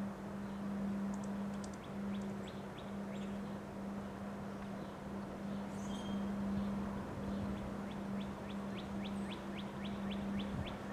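Wind blowing steadily under a continuous low hum, with a bird chirping now and then. In the second half a bird gives a fast run of short repeated high notes, about four to five a second.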